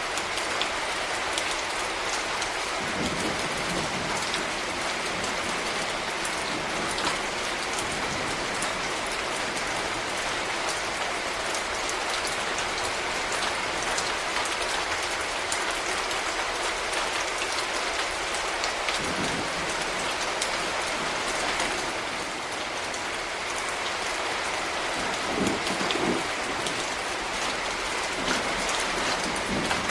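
Steady rain falling on hard surfaces, a constant hiss dotted with individual drops ticking. A few soft low thuds stand out, about two-thirds of the way through and again near the end.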